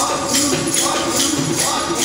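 Sikh keertan: tabla played in a steady rhythm under a sung hymn, with sharp percussive strikes about twice a second.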